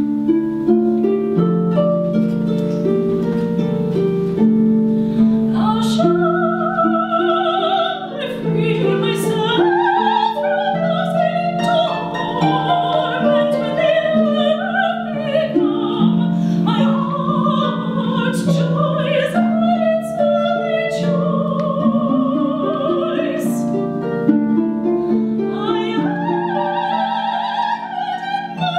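A concert harp playing, joined about six seconds in by a soprano singing with a wide vibrato.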